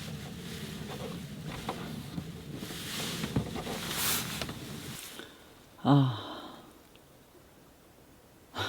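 Strong wind buffeting the microphone with rustling for about five seconds, then it cuts off. About a second later comes one loud, falling sigh from a woman.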